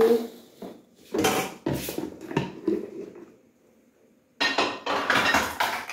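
Pots, lids and kitchen containers clattering and clinking as they are moved about on a counter, in two spells with a short quiet gap before the second, busier one.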